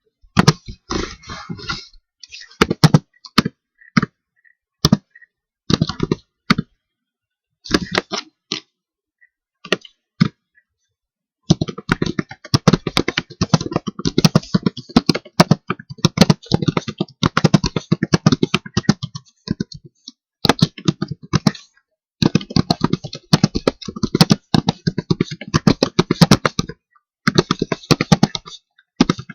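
Typing on a computer keyboard: short clusters of keystrokes with gaps at first, then long runs of rapid, continuous typing through the second half.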